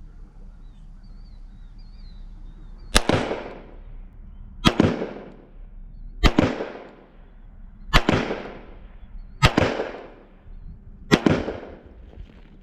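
Six handgun shots in slow, deliberate fire, about one every one and a half seconds, each trailing off in a short echo.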